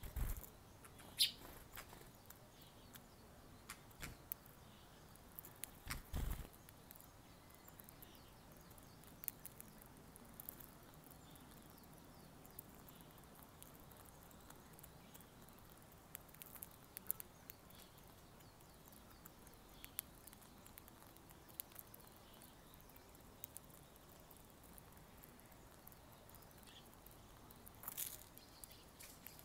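Eurasian tree sparrows landing on a plastic seed dish, a soft thump at the start and another about six seconds in, then faint scattered ticks of their beaks pecking at millet seed.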